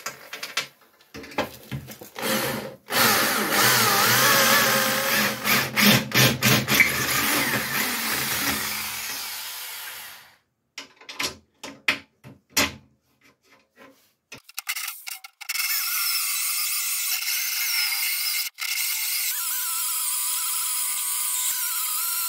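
Clatter of steel bolts being handled on a steel plate, then a corded electric drill boring through 6 mm steel plate, a steady high-pitched cutting sound from about two-thirds of the way in.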